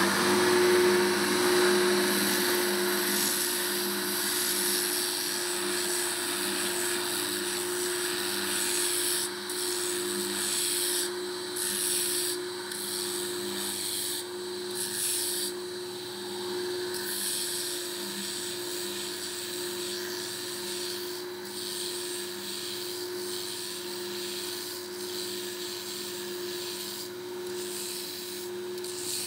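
Heel scouring machine running, its abrasive drum sanding the stacked leather heel of a cowboy boot. A steady motor hum under a rasping scour, which thins out briefly several times in the middle as the heel is eased off the drum.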